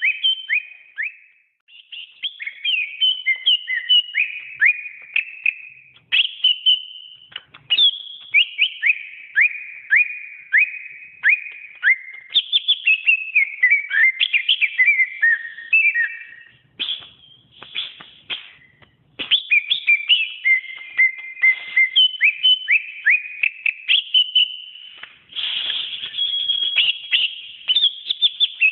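Cucak ijo (green leafbird) singing a long, fast run of clear high whistles and quick down-slurred chirps, with a few brief pauses.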